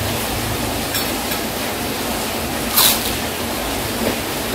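Heavy rain falling steadily, an even hiss, with one short sharp click about three seconds in.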